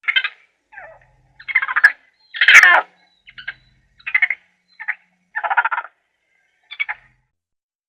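A run of short, rasping animal calls, about nine in eight seconds, each under a second long and spaced irregularly.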